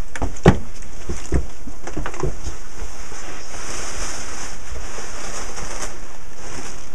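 Footsteps of a person walking away: a few thumps over the first two seconds, the loudest about half a second in. After that only a steady hiss of room noise.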